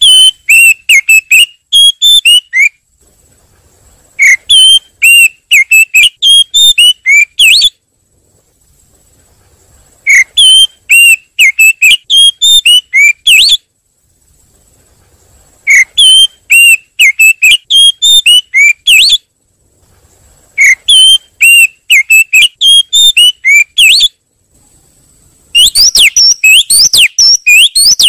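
Oriental magpie-robin (kacer) lure call: loud bursts of rapid, sharp whistled chirps, several a second, each burst lasting about three seconds with short pauses between, six bursts in all. The last burst, near the end, turns into a faster run of rising whistles.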